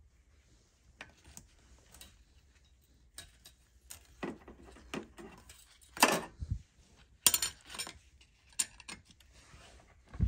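Steel clutch plates, friction plates and shims from a ZF 8HP55 automatic transmission clinking as they are stacked into a clutch pack: irregular light metal clinks and clatters, loudest about six and seven seconds in, with one more near the end.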